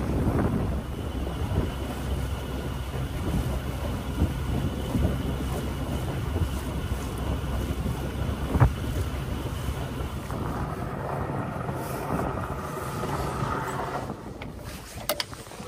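Wind buffeting the microphone over the rush of water around a sailboat under way. A single sharp knock sounds a little past halfway.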